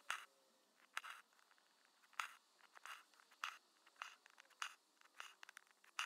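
Embroidery needle punching through taut fabric in a hoop and thread pulled through after it: a sharp tap followed by a short rasp, repeating about once a second.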